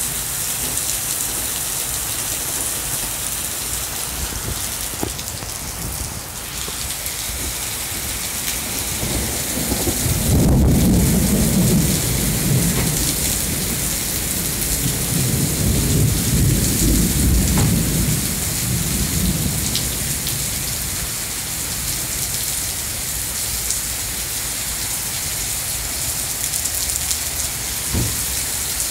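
Heavy rain pouring steadily, with a long rumble of thunder starting about ten seconds in and rolling on for about ten seconds.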